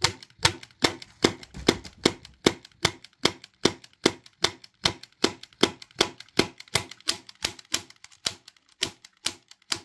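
Crosman C11 BB pistol, converted from CO2 to high-pressure air, firing shot after shot at about two to three a second, each a sharp crack that grows slightly weaker toward the end. With the tank valve shut, this is the air trapped in the remote line being bled off.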